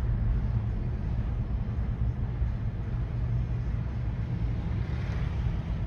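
Steady low rumble of road traffic with a heavy diesel truck close by, its engine drone strongest at the bottom, and a little more tyre and road hiss near the end.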